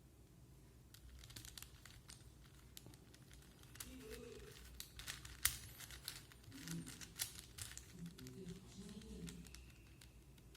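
Plastic 4x4 Rubik's cube being turned by hand: a quick run of small clicks and rattles as its layers are twisted, one sharper snap about five and a half seconds in.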